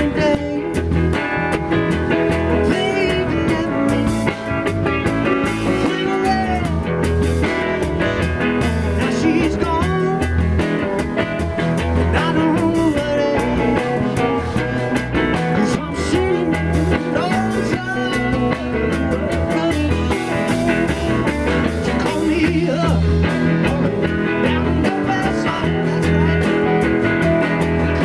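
Rock music with guitar, a steady drum beat and singing.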